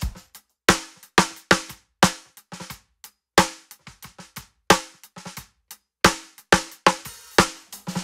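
Snare drum played in a groove, heard solo through its close Shure SM57 mic: loud accented strokes with softer ghost strokes between them. The chain is a 1073 preamp and an 1176 compressor just barely touching it.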